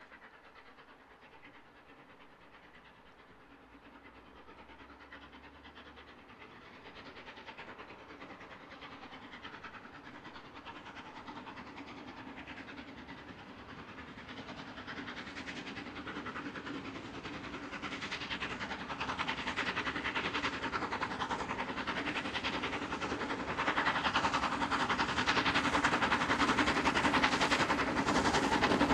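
Steam locomotive No. 46100 Royal Scot, a three-cylinder LMS 4-6-0, working a train away from a station. Its exhaust beat and the running noise of the train grow steadily louder as it draws nearer.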